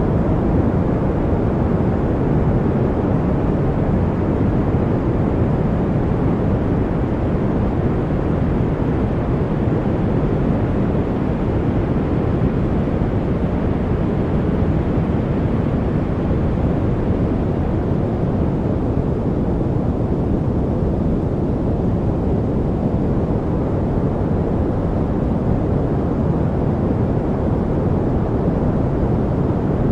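Continuous generated noise: an even, unchanging hiss weighted toward the low end, so it sounds deep and rumbly rather than bright.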